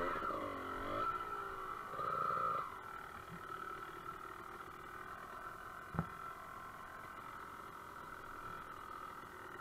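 Dirt bike engine revving up and down in short bursts for the first few seconds, then running quieter at low throttle. A single sharp knock about six seconds in.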